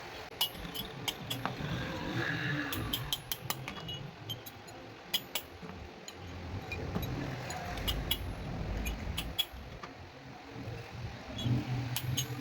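Light metal-on-metal taps and clinks from hand metalwork, coming irregularly in small clusters with a short ring after each, over a low rumble.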